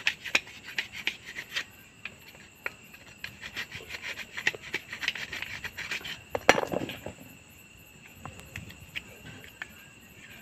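Screwdriver scraping and picking at the perforated tube of a two-stroke moped's exhaust muffler, breaking out hard carbon deposits that clog its holes, in quick irregular scratches and taps. One louder knock with a short ring about six and a half seconds in, then only occasional ticks.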